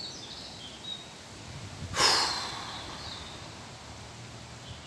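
A person's short, sharp breath out, a huff or snort, about two seconds in, over a low steady background.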